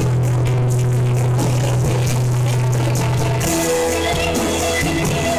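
Jam band playing live, instrumental, on electric guitars and bass guitar. A low note is held for about the first three seconds before the music picks up.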